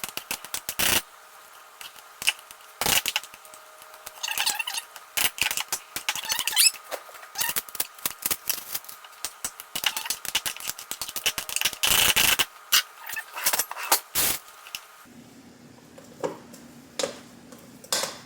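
Potato masher mashing boiled potatoes in a bowl: quick, irregular clacks and knocks of the masher against the bowl, thinning to a few scattered knocks near the end.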